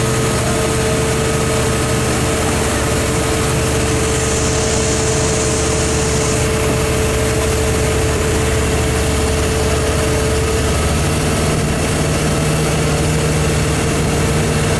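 Towing motorboat's engine running steadily under way, over a constant rush of wind and water from the wake; the engine's drone shifts slightly about eleven seconds in.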